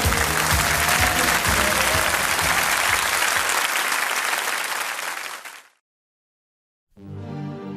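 A crowd applauding and cheering at the end of a live-sounding track, with the song's last beats underneath, fading out about five and a half seconds in. After a second of silence, the next song's music begins.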